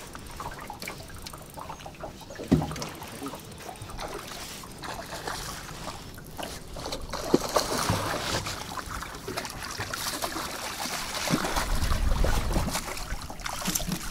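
A hooked trout splashing and thrashing at the water's surface beside a boat as it is played in to the landing net, the splashing building and loudest in the last few seconds. Two sharp knocks, about two and a half and seven seconds in.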